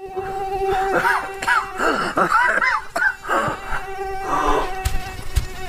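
A steady electronic buzzing drone. From about one to three seconds in, warbling tones slide up and down over it, and a few sharp hits come near the end.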